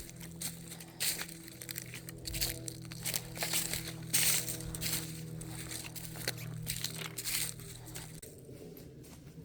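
Footsteps crunching through dry leaves and debris on a hiking trail, a step about every half second to a second. Under them a steady low hum that stops about eight seconds in.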